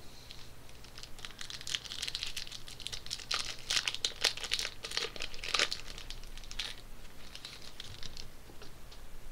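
Foil wrapper of a hockey trading-card pack crinkling and tearing as the pack is opened by hand, with a run of dense crackles.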